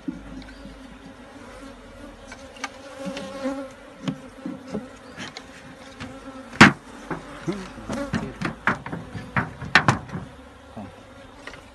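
Honey bees buzzing around an open hive with a steady hum, broken by sharp wooden knocks as the hive box and its parts are handled. The loudest knock comes a little past halfway, and a cluster of them follows near the end.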